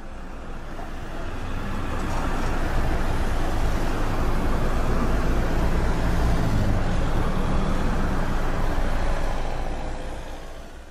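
City street noise: a steady rumble of passing traffic with an even wash of outdoor noise. It builds over the first couple of seconds and fades out near the end.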